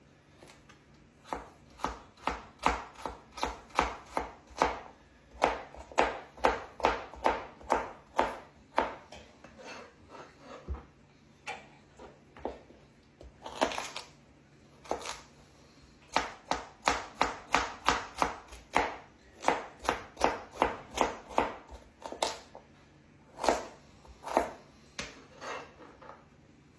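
Knife chopping vegetables on a cutting board: runs of steady strokes, about three a second, broken by short pauses.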